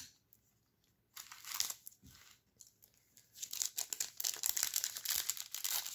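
Foil wrapper of a Topps Chrome trading card pack being torn open and crinkled by hand. It begins with scattered crackles and grows into steady crinkling from about halfway through.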